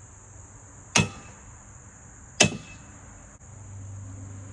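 Two sharp knocks on an aluminum railing, about a second and a half apart, each with a short metallic ring.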